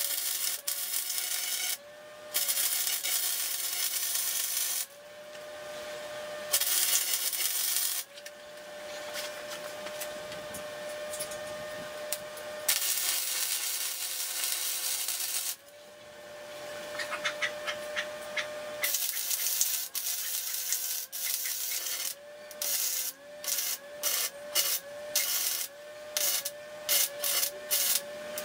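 Arc welding on 2x2 square steel tubing: the arc crackles and sizzles in runs of a few seconds each, broken by short pauses. It ends with a quick series of short stitch welds in the last six seconds. Under it runs a steady hum from the welding machine that sags in pitch each time the arc strikes.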